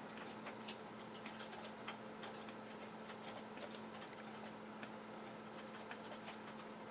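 Faint, irregular light ticks, several a second, over a steady low hum.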